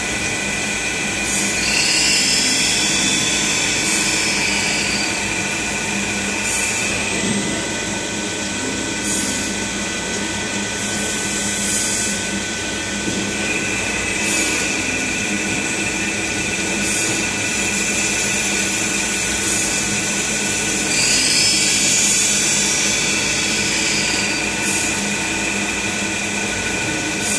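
Saw blade tooth grinding machine grinding the cermet tips of a cold saw blade. A steady high whine runs throughout, with a hissing grinding surge about every two and a half seconds as each tooth is passed in turn.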